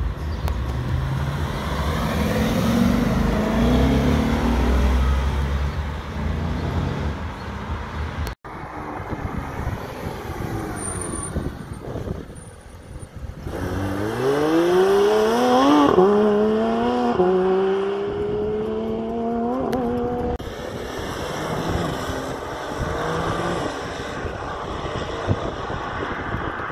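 A Ford Mustang drives past with a low engine rumble. After a cut about eight seconds in, a Porsche 911 GT3 RS's naturally aspirated flat-six accelerates hard away. Its pitch climbs through three upshifts, then the sound fades as the car drives off.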